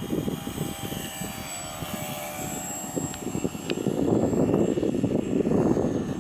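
Electric motor and propeller of a Multiplex FunCub RC plane whining steadily as it flies low past, over a low rushing noise that grows louder about four seconds in.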